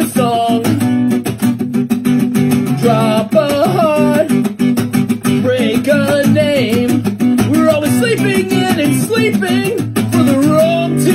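Background music: a strummed guitar with a voice singing over it.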